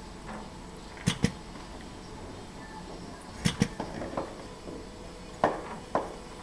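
Sharp metallic clicks, mostly in close pairs a couple of seconds apart, as the spring clips on an edge inking machine's rack snap onto leather strips, with a short rattle in the middle. Under them runs a steady low hum.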